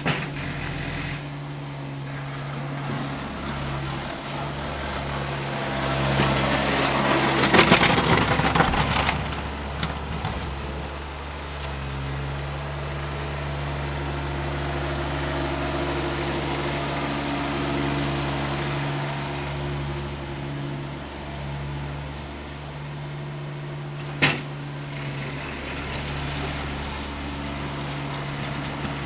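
John Deere X595 garden tractor's engine running steadily while it plows snow with a front-mounted blade. A louder, rough, noisy stretch comes around six to ten seconds in, and a single sharp clank about 24 seconds in.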